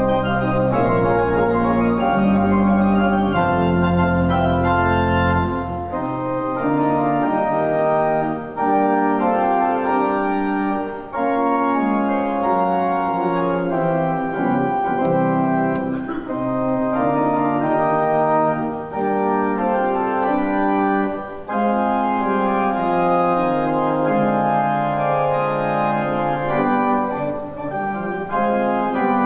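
Church organ playing the postlude in sustained chords, the notes changing every second or so. Deep pedal bass notes sound under the chords and drop out about six seconds in.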